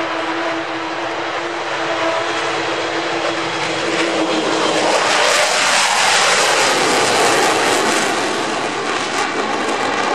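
Avro Vulcan's four Rolls-Royce Olympus turbojets at high power as the bomber climbs away after take-off. A steady whine gives way to a jet roar that builds to its loudest about six seconds in as the aircraft passes, its pitch sweeping downward, and it stays loud as the jet climbs.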